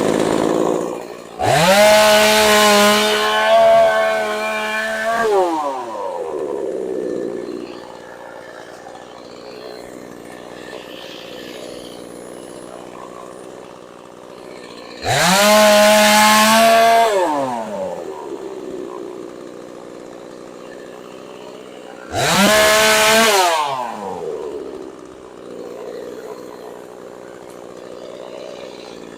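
Gas chainsaw revved to full throttle three times, each rev rising in pitch and falling back to idle, as it cuts through logs; the first cut is the longest. The saw idles between cuts.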